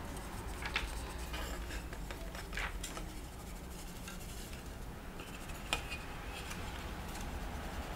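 Faint rubbing of a sanding sponge on a plastic model car body, with a few small, sharp clicks of plastic parts being handled.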